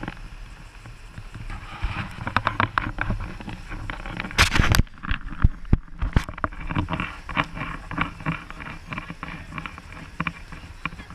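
Water slapping and lapping against an inflatable raft's rubber tubes in irregular splashy strokes, over a low steady rumble. A loud, brief rustling burst comes about four and a half seconds in.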